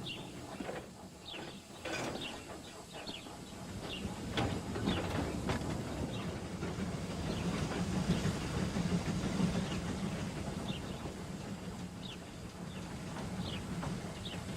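Train rolling along rails: a steady rumble with irregular clicks of wheels over the track, growing louder over the first half.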